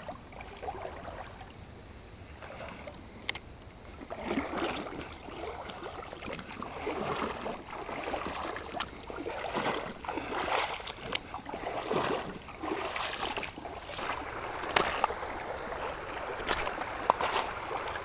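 Footsteps wading through a shallow, rocky creek in flip-flops, each step splashing and sloshing the water. The steps start about four seconds in and come roughly once a second, over the faint steady sound of the creek flowing.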